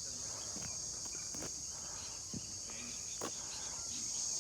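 Steady high-pitched insect chorus, with a few faint taps and scrapes spread through it.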